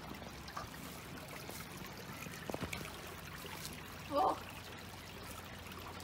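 A river flowing steadily, with a few faint clicks of footsteps on forest litter and a brief voice about four seconds in.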